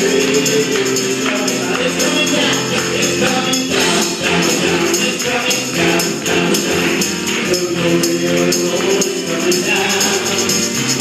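Live gospel worship music: a keyboard and a group of voices singing together over a steady shaken percussion beat.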